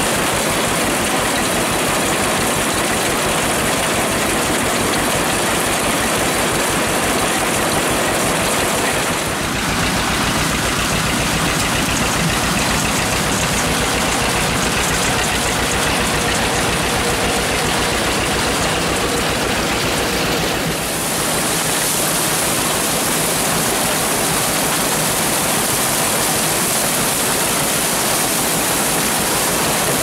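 Old John Deere tractor running steadily under load, driving a pull-type corn picker whose elevator chain carries picked ears up into the wagon, with a dense machinery clatter. The sound shifts abruptly twice, about nine and twenty-one seconds in.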